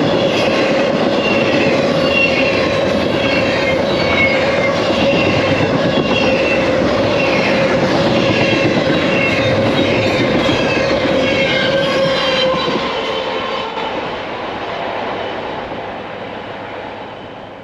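Freight train cars rolling past on the rails, with wheel noise and squealing from the wheels; the sound fades away over the last few seconds as the train recedes.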